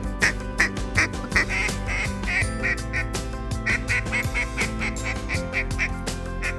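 Ducks quacking in a quick, steady run of about three or four quacks a second, over background music with held tones.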